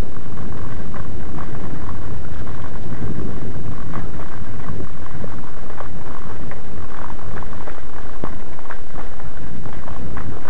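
Loud wind buffeting the microphone of a camera riding along on a mountain bike over a bumpy dirt track, with a constant scatter of small rattles and knocks from the ride.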